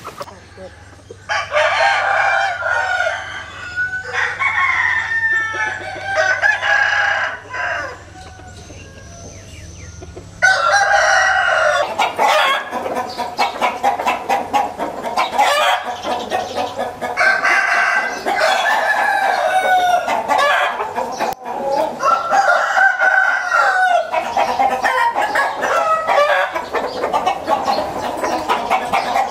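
Bantam roosters crowing again and again, with a quieter lull about eight seconds in, then denser, overlapping crowing from about ten seconds on.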